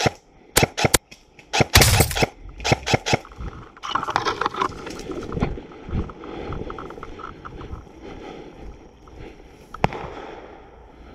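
Airsoft gun fire: a few sharp snaps, then a rapid automatic burst about two seconds in and a few more shots, all in the first three seconds, with one more single shot near the end. In between, brush and undergrowth rustle as the player pushes through.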